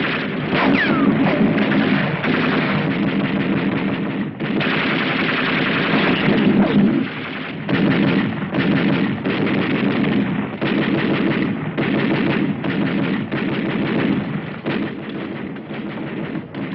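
Machine-gun fire in rapid bursts with short breaks between them, mixed with scattered gunshots, on an old 1940s film soundtrack.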